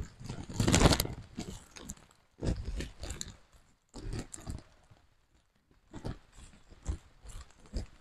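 Footsteps on a wet, muddy forest trail mixed with leaves and undergrowth rustling as the walker brushes past, coming in irregular crunchy bursts with a louder rustle about a second in.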